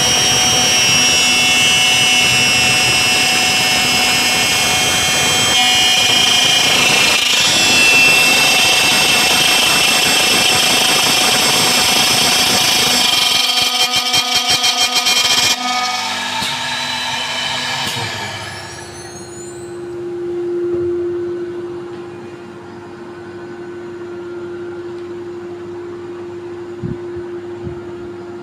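CNC lock-slot milling machine cutting an aluminium door profile: a loud, high cutter whine over grinding noise, then a couple of seconds of rapid pulsing about halfway through. The cutting then stops, leaving a quieter steady hum.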